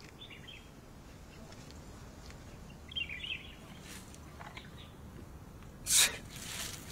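Quiet woodland ambience with faint bird chirps, twice. A sudden, brief, loud noise comes near the end.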